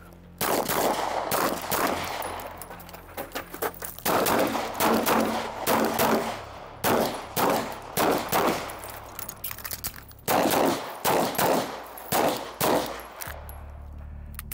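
SIG P228 9mm pistol fired in quick pairs and strings of shots with short pauses between strings, a timed multi-target course of fire. The shooting stops about a second before the end.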